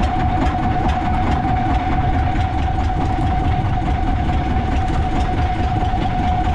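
Fishing boat's engine running steadily: a constant high whine over a dense low rumble.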